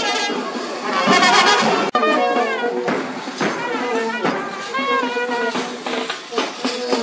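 A brass band playing a tune, trumpets leading over lower brass horns. The sound drops out for an instant about two seconds in, then the playing resumes.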